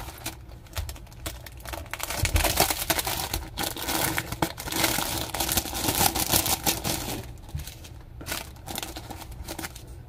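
Small clear plastic packet crinkling in the hands as a string bracelet is worked out of it, loudest and busiest in the middle few seconds.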